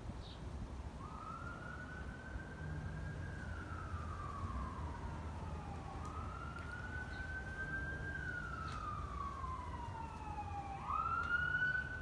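Emergency vehicle siren wailing. Each cycle rises quickly and falls slowly, about every five seconds, and the third rise near the end is the loudest, over a low rumble.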